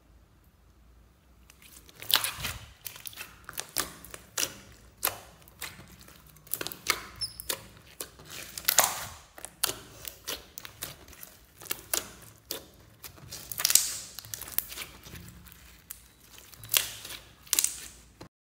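Clear red glitter slime being squeezed and pressed by hand, giving irregular wet clicks and pops that start about two seconds in and stop just before the end.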